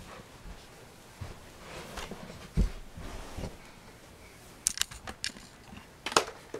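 Handling of a Nerf Longstrike CS-6 plastic toy blaster on a carpeted floor: a few soft thumps of movement in the first half, then a quick run of sharp plastic clicks and taps near the end.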